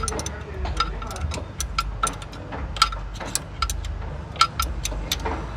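Toyota Corolla XLi engine idling with a steady low rumble, overlaid by irregular sharp metallic clicks, several a second.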